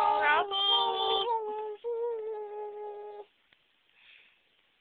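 A high-pitched voice holding long, silly sung notes in a put-on voice, with a brief upward slide near the start and two long steady tones, breaking off a little past three seconds in.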